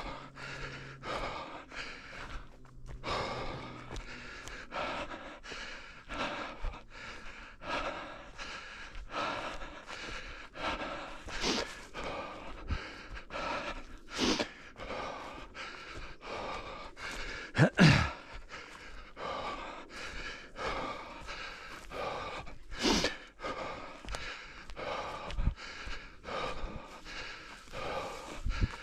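A runner's heavy panting breaths and footfalls in a steady rhythm, about two to three a second, with one louder knock a little past halfway.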